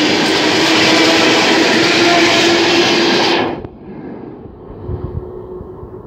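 ER9T electric train carriages running past close by, with loud wheel-and-rail noise and a steady hum. The noise cuts off abruptly about three and a half seconds in, leaving a much quieter rumble with scattered low thumps.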